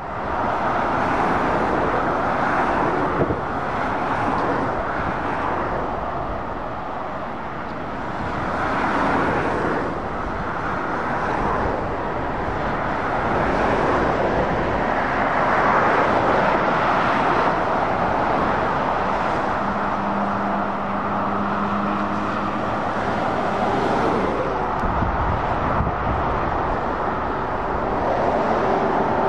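Road traffic on a dual carriageway: cars and lorries driving past, tyre and engine noise swelling and fading in waves as each vehicle approaches and goes by.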